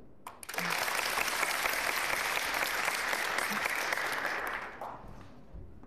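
Audience applauding: a round of clapping that starts about half a second in and dies away about five seconds in.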